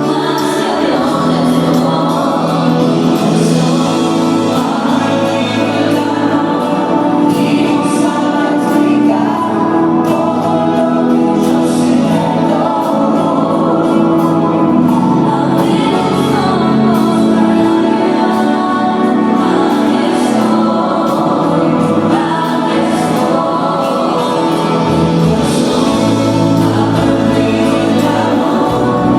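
Music: a choir singing held notes.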